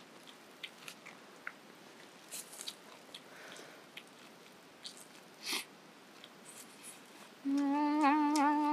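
Faint, scattered crunches of a girl biting and chewing kernels off a grilled corn cob. Near the end comes her long, loud hummed 'mmm', steady at first, then wavering and swooping up and down.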